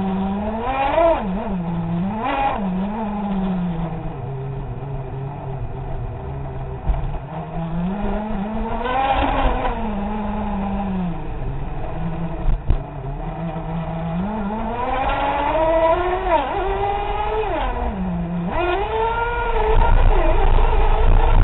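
Radio-controlled car's motor picked up by a camera mounted on the car, its pitch rising and falling as the throttle is worked, with a steadier drone in between. Several quick revs come near the end, where it is loudest.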